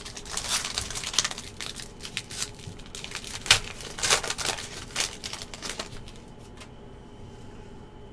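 Black foil wrapper of a 2020 Contenders Optic Obsidian football card pack crinkling and tearing as it is opened by hand. A dense run of crackles lasts about six seconds, loudest around the middle, then dies away.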